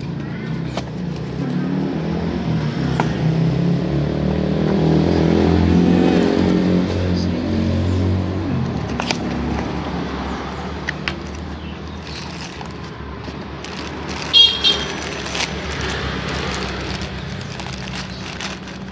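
A motor vehicle engine runs in the background. It grows louder through the middle and then eases off. There is a brief high toot about fourteen and a half seconds in, and the cardboard box and plastic bag of new engine parts crackle and rustle as they are handled.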